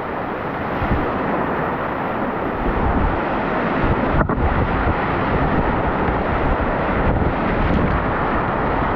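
Whitewater rushing through a river rapid at high flow, a loud steady wash of water noise broken by two brief dips, about four and seven seconds in.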